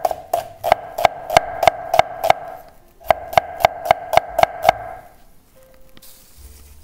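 Chef's knife slicing a red onion on a wooden board: even knife strikes on the wood, about three a second, with a brief pause in the middle, stopping about five seconds in. Soft background music follows.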